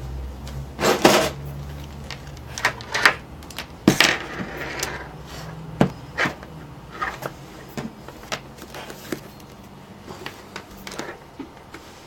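Irregular clicks, taps and knocks of a voltmeter, its probes and the wires being handled on a desk.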